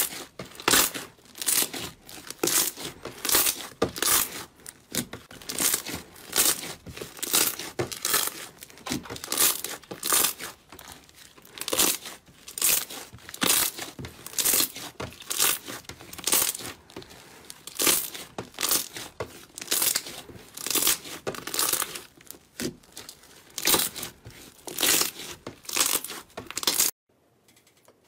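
Hands squeezing and kneading green slime, with crackling and popping bursts from each squeeze, repeating about one to two times a second. The bursts stop suddenly near the end, leaving only a few faint clicks.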